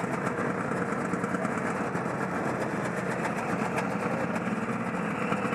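Yamaha Bravo BR250 snowmobile's two-stroke engine running steadily.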